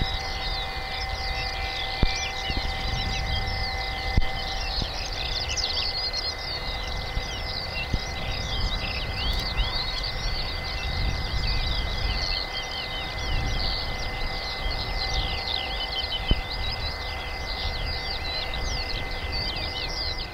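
Many small birds chirping and singing throughout, over a steady mechanical hum with constant whining tones and a low rumble. A few short knocks stand out.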